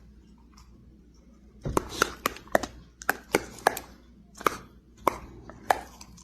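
A dog chewing something hard, a series of sharp crunching bites at uneven intervals, starting about a second and a half in.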